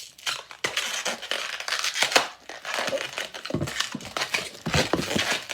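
Latex twisting balloon being handled and twisted: rubber rubbing and crinkling against itself and the hands, with a few short squeaks about two-thirds of the way in.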